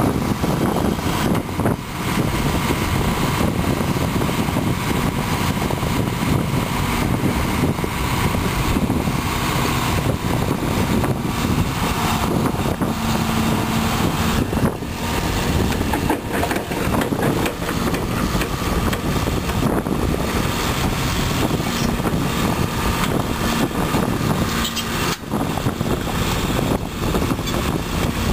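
John Deere 690B excavator's turbo diesel engine running steadily while the boom lifts the bucket and the machine swings, with steady tones that strengthen and fade as the hydraulics work.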